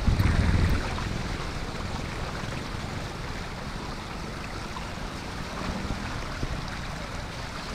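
Steady rushing noise with no clear pitch, with a louder low buffeting rumble in the first second that settles to an even level.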